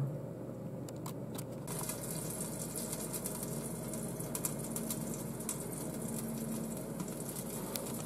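ConvectionWorks countertop convection oven running with a whole chicken roasting on its rotisserie: a steady fan hiss scattered with light ticks and crackles. The sound grows fuller about two seconds in.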